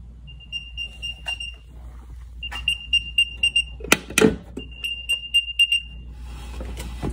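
Apple AirTag playing its alert sound: short high beeps in three quick runs, the sound an unknown AirTag makes to reveal itself. Two sharp knocks come near the middle.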